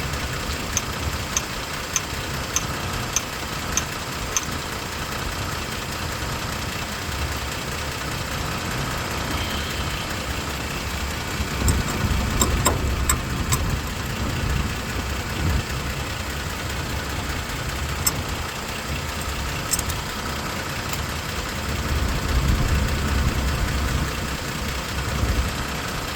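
Toyota Tacoma engine idling, with a regular clicking of about one click every 0.6 s over the first few seconds and a few louder, scattered clicks later on.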